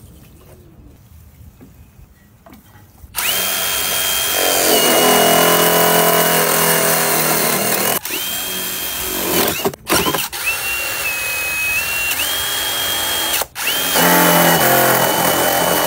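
Cordless drill drilling into a plastic planter box: after about three quiet seconds the motor starts with a steady whine and runs in several long stretches, stopping briefly a few times, its pitch dropping slightly during one stretch.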